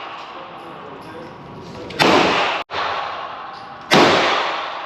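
Two gunshots about two seconds apart, each with a short echoing tail.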